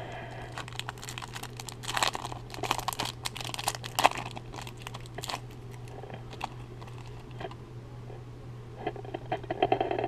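Foil wrapper of a baseball card pack crinkling and tearing as it is pulled open by hand: a flurry of sharp crackles in the first half, quieter handling in between, and more crackling near the end, over a steady low hum.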